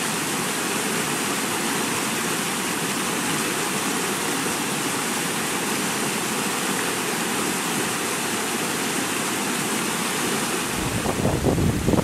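Flash-flood water rushing through a rocky desert wash and spilling over a small rock ledge: a steady rush of muddy running water. Near the end, gusts of wind buffet the microphone.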